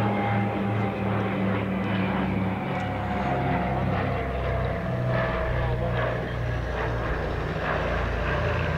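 A Short Sunderland four-engine piston flying boat flying past overhead. Its propellers and engines drone with a pulsing beat, and the pitch falls slowly as it moves away.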